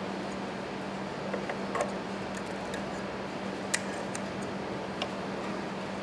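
Scattered light clicks and ticks as enamelled copper magnet wire is handled and snipped with scissors on a voice-coil former, the sharpest click a little past the middle, over a steady hum.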